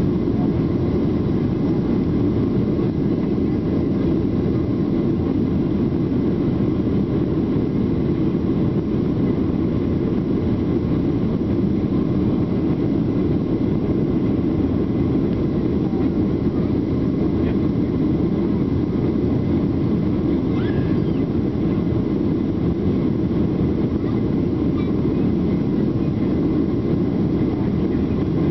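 Steady cabin noise of a Boeing 737-800 in its climb: the deep, even hum of its CFM56-7B turbofans and the rush of air past the fuselage, with no changes in pitch or level.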